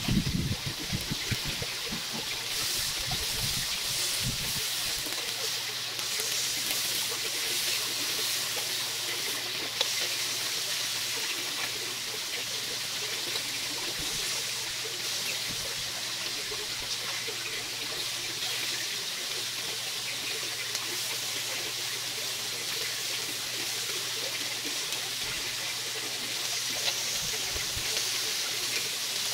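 Marinated chicken fillets sizzling on an electric grill plate: a steady hiss, with a faint low hum underneath.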